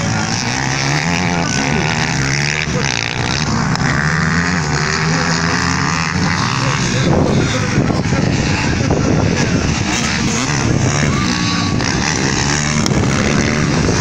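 Several off-road motorcycles racing on a dirt track, their engines overlapping and revving up and down as the riders accelerate and ease off.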